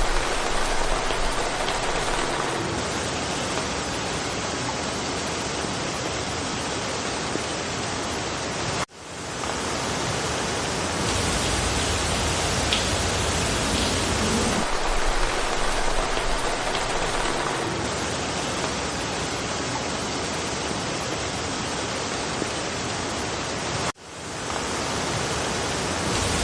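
Steady rain falling through a forest, an even continuous hiss. Twice it cuts out for a moment and fades back up within about a second.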